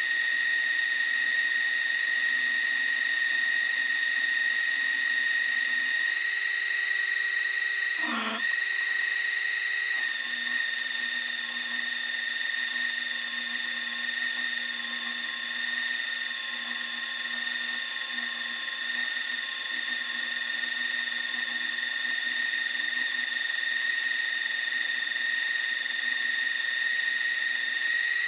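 Small motor of a First Tool micro lathe running at speed with a steady high whine. About eight seconds in the pitch dips sharply for a moment and recovers, then the whine carries on steadily.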